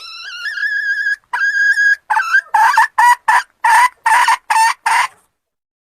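Red junglefowl hen cackling. It opens with two long, drawn-out calls, the first rising in pitch, then breaks into a quick run of about eight loud, short clucks.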